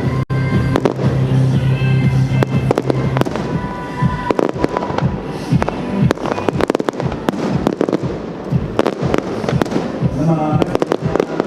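Fireworks going off in quick, irregular succession, a dense run of bangs and crackles, over loud music.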